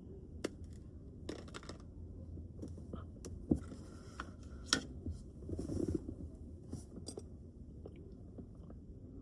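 Close handling noise: scattered light clicks and taps with soft rustling, sharper ticks about three and a half and five seconds in, and a brief rustle near six seconds, as hands handle small objects.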